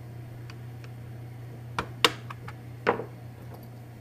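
Sharp metallic clicks and knocks of small parts being worked on an airsoft AK's receiver while the front trigger-box pin is pushed out: a few faint ticks, then three sharper clicks about two to three seconds in, the second the loudest.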